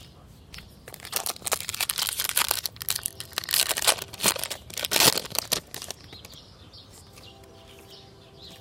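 Plastic wrapper of a baseball card pack being torn open and crinkled: a dense run of crackles lasting about five seconds, loudest in the middle, then it quiets down.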